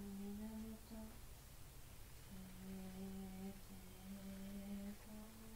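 A woman's voice faintly intoning a ritual chant in long, held low notes that step slightly in pitch, with a short pause about a second in. The voice is kept deliberately subdued.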